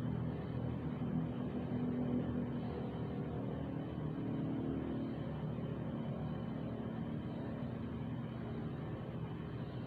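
A steady low mechanical hum with a faint whir that runs on without change.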